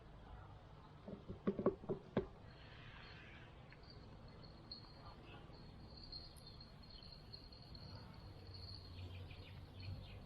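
Riverbank ambience with a thin, high, steady insect trill. A quick run of five or six sharp knocks and clicks comes just after a second in, as gear is handled.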